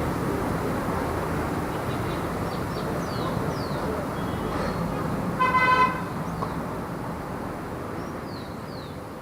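Light city traffic going by steadily, with a short car horn toot about halfway through; the traffic slowly fades toward the end.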